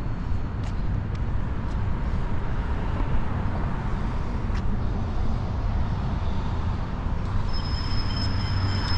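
Steady city traffic noise: a low rumble of passing vehicles on a downtown street.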